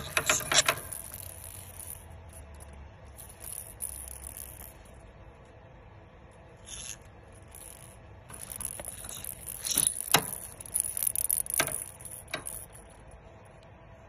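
Small plastic rattle toy clicking and rattling in bursts as a conure shakes and chews it in its foot and beak. There is a burst at the start, brief ones in the middle, and a longer run of rattling near the end.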